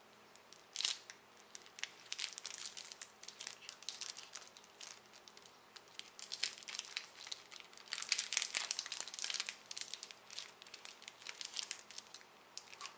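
Cadbury Crunchie bar's wrapper crinkling and tearing as it is pulled open by hand: a quick run of crackles, busiest about eight seconds in.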